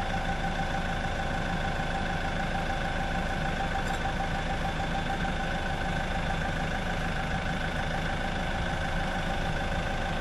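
Forklift engine running steadily, with a steady high whine over it.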